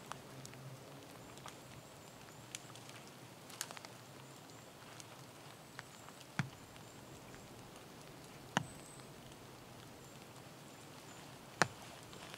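Wooden branches knocking against a fallen log as they are set upright to frame a lean-to shelter: a few sharp knocks a couple of seconds apart over a quiet forest background.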